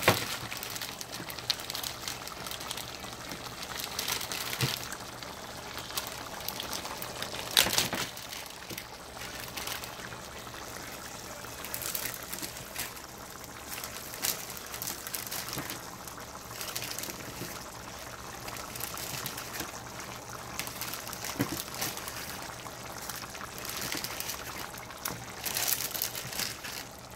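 A spoon stirring thick egusi soup in a metal pot: wet sloshing with scattered knocks of the spoon against the pot, the sharpest about eight seconds in.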